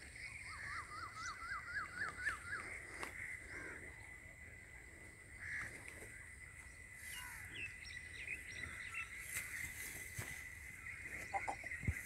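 Birds calling: a quick run of about nine rising chirps in the first three seconds, then scattered short chirps later, over a steady faint high tone.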